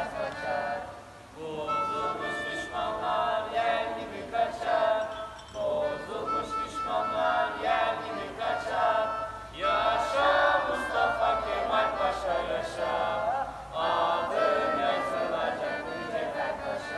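Choral singing with music, many voices together in phrases of about four seconds with short breaks between them.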